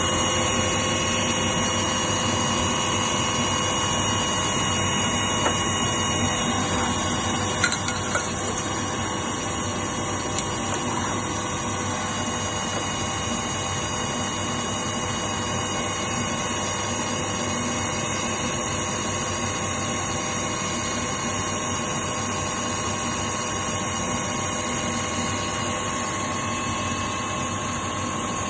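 Wahli 90 CNC machine tool running steadily: a constant hum with several high whining tones and a wash of coolant, with a few sharp clicks about eight seconds in.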